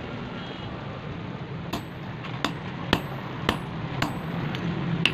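Small hand hammer striking a chisel held on a steel anvil block, cutting or marking a thin piece of steel. The blows start nearly two seconds in and come about twice a second, each a sharp metallic clink with a brief high ring.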